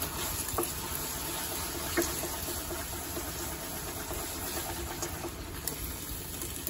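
Beaten eggs sizzling in a hot frying pan while being stirred, a steady hiss with a few light taps of the utensil against the pan.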